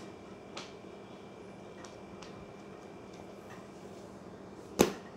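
Paperback book being handled: a few faint ticks of pages and cover as it is leafed through and closed, then one sharp knock near the end, over a steady low room hum.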